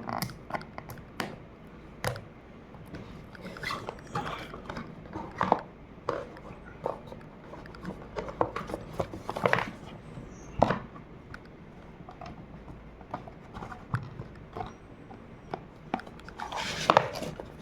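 A speaker's retail box and its packaging being opened and handled by hand: irregular clicks, scrapes and rustles of cardboard and packing material.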